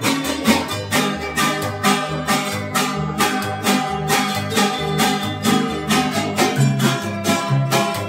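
Instrumental passage by a string ensemble: several acoustic guitars strumming chords in a quick, steady rhythm while a guitarrón plucks the bass line beneath.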